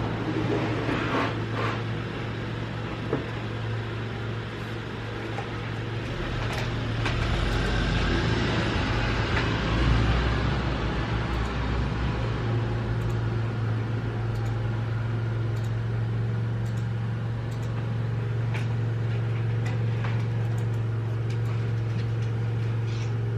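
A steady low hum with a haze of noise over it, swelling a little in the middle, and a few faint clicks.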